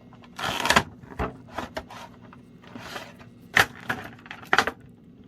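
Funko Pop box and packaging being handled: short rustles of cardboard and plastic with several sharp clicks and knocks, the loudest about three and a half seconds and four and a half seconds in.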